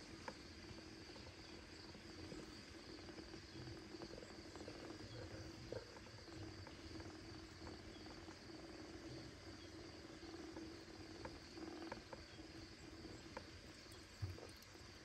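Near silence: a faint steady hum and hiss of room tone with a few soft scattered ticks.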